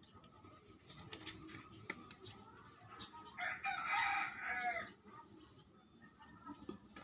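A rooster crowing once, about a second and a half long, near the middle. Faint clicks from a metal pick working at the plastic cable-end fitting of a car power-window regulator.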